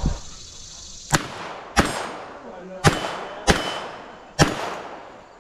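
Five handgun shots in quick succession over about three and a half seconds, a timed string fired at steel targets, with a faint ring of struck steel after a couple of them. A low thump comes right at the start, before the first shot.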